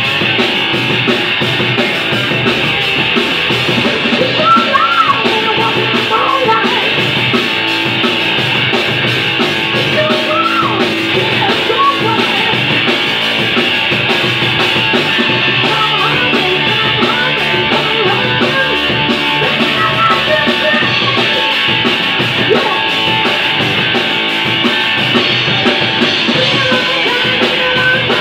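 Three-piece rock band playing live: electric guitar, electric bass and a Mapex drum kit, a loud, steady rock-and-roll groove with no breaks.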